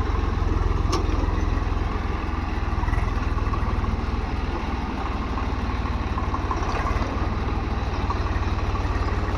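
Tractor engine running steadily with a low, even throb, with a brief click about a second in.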